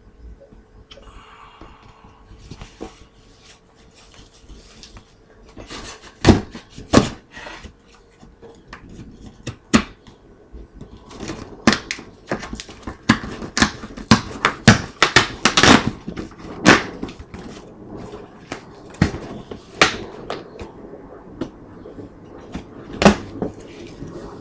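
A cardboard shipping box being cut open and its flaps handled: faint scratching at first, then a long run of sharp cardboard knocks and snaps.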